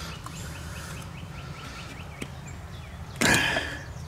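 Cap being pulled off a brake master cylinder's plastic fluid reservoir, with a short, loud handling noise about three seconds in after a small click. A bird chirps quickly and evenly in the background over a low steady hum.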